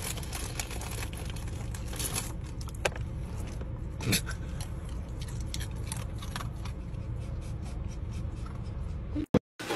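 Low steady rumble of a car heard from inside the cabin, with scattered light clicks and a soft knock about four seconds in.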